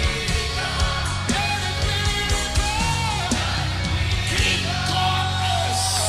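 Live praise-and-worship band music with a steady beat and bass, and voices singing long held notes that slide down at their ends.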